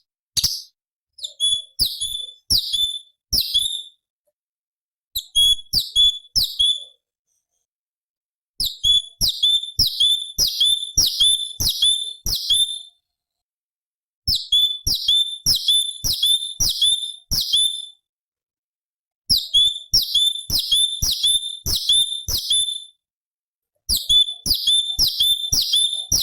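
Orange-bellied leafbird (cucak cungkok) calling: a sharp, high note that drops quickly in pitch, repeated about three times a second in runs of four to ten notes, with short pauses between runs.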